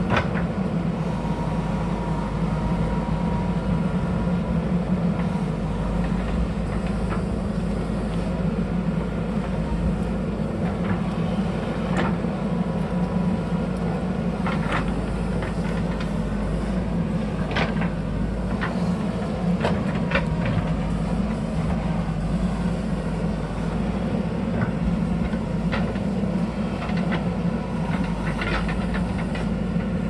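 Diesel engine of a JCB backhoe loader running steadily while digging into a hillside, with scattered sharp knocks through the middle and later part.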